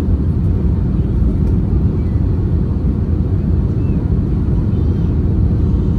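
Airbus A320-200 cabin noise on final approach with flaps extended: a steady, loud, low rumble of engines and rushing air, heard from a window seat over the wing.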